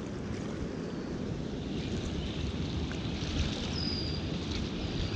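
Wind buffeting the microphone over the steady rush of a flowing river, with a faint high chirp about four seconds in.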